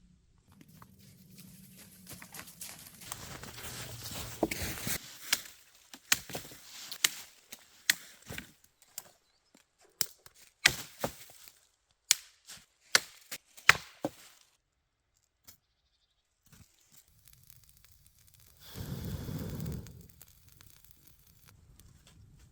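Wood being worked by hand: a few seconds of tearing and rustling, then a string of sharp cracks and knocks, about one a second. Near the end comes a brief rustling swish.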